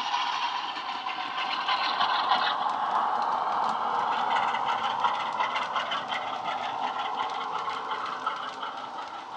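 DCC sound decoder in a Bachmann OO-gauge Class 47 model locomotive playing a recording of a Class 47 with electric train heating, its diesel engine running under power, through the model's small speaker. The model's wheels tick and clatter on the track, and the sound eases off near the end as the train passes.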